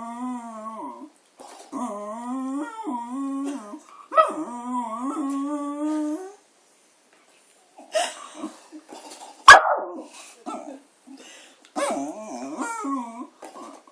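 A pet dog howling along in a 'singing' duet: long wavering notes that slide up and down, three of them in the first six seconds and another near the end. In between comes a short rough yelp and a single sharp, loud snap, the loudest sound here.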